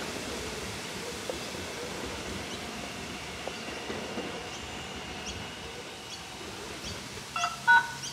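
X'Trapolis 100 electric train running away along the track, a steady rumble and hiss with a faint whine that fades slowly. Near the end, a few short, sharp chirps stand out as the loudest sounds.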